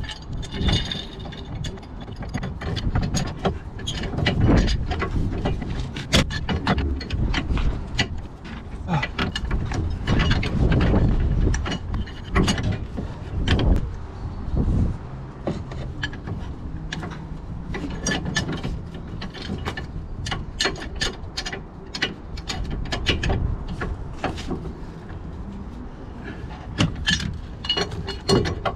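Hand tools working on the bolts of a rotary screw compressor: a busy, irregular run of metal clicks, clinks and knocks, with ratchet-like clicking.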